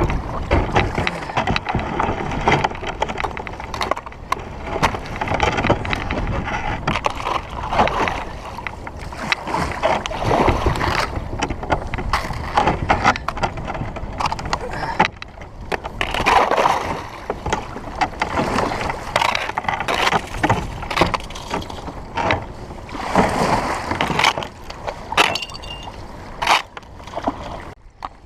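Kayak paddle strokes and water splashing around a Wilderness Systems Tempest 170 sea kayak. Frequent short knocks and clicks run through it as the boat pushes through floating ice chunks.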